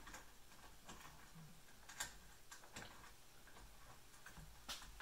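Faint, irregular clicks and taps of the CNC router kit's frame parts being handled and pushed into position, with the sharpest click about two seconds in and another just before the end.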